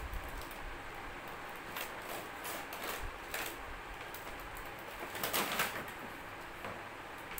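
Cardboard toy box and plastic tray being handled: rustling and scraping as the inner plastic tray is slid out of the box, with the loudest scrape a little past five seconds in.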